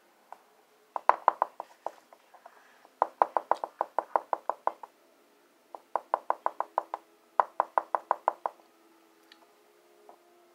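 Quick light tapping on a small plastic lip-gloss tube, in four rapid runs of about six taps a second.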